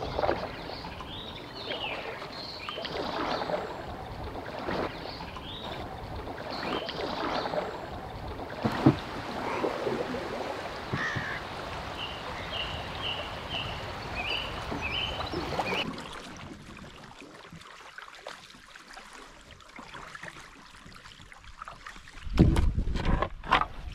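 Water washing along a canoe's hull as it glides downstream, with birdsong over it, including a short run of repeated chirps about halfway through. The water noise drops away about two-thirds of the way in, and loud low buffeting hits the microphone near the end.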